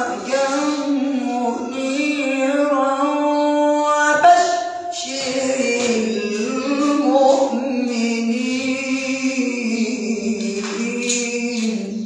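A man's voice reciting the Quran in a slow, melodic style: long held notes with ornamented runs, in two phrases split by a short break about four seconds in.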